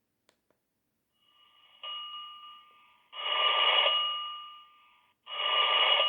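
Sagem myX-3 mobile phone's speaker playing a telephone-bell-style ring tone: a two-pitched electronic ring in three bursts, starting about a second in, the first softer and each fading away.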